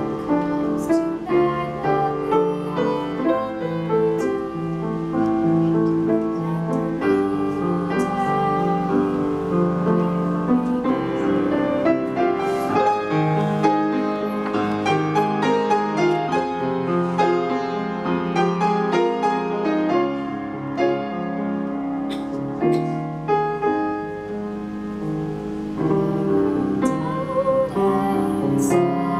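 A girl singing solo with grand piano accompaniment.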